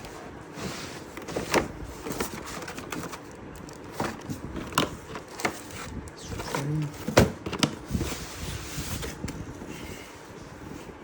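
Packaging being handled while a robot vacuum's docking station is unboxed: rustling cardboard and plastic with scattered knocks and clicks, the sharpest knock about seven seconds in.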